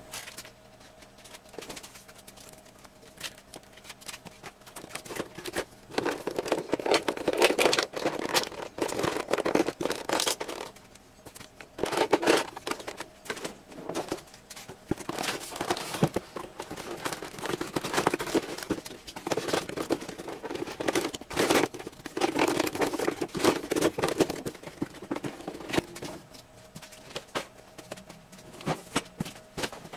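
Clear plastic packaging crinkling and crackling as it is handled, in irregular spells with short pauses, starting about five seconds in.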